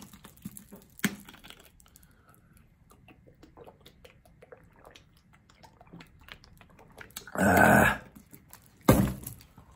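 A man drinking from a plastic water bottle: a click as the cap is twisted about a second in, then quiet gulps. Near the end come a louder breathy sound lasting under a second and, a second later, a short sharp one as the bottle is handled and recapped.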